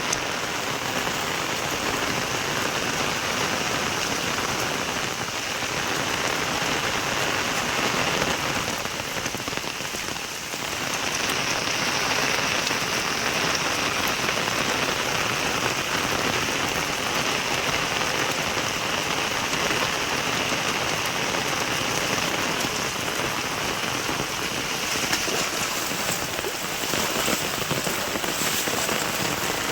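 Steady rain falling hard, a dense even patter that eases slightly for a moment about ten seconds in.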